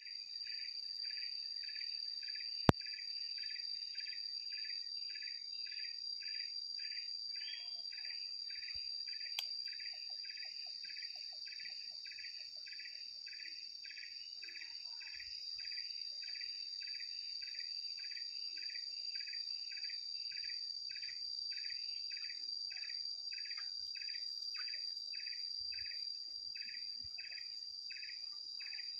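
Insects calling: a steady high-pitched drone over a regular pulsed chirp, just under two chirps a second. A single sharp click comes about three seconds in.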